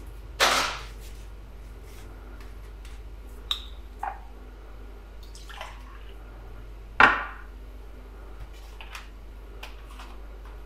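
Liquid poured into a glass in a few short splashing pours, with small clinks of glass and a knock on a counter in between, over a steady low hum.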